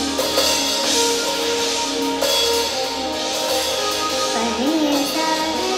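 A live band playing: drum kit and electric guitar under held notes, with a sliding melodic line a little before the end.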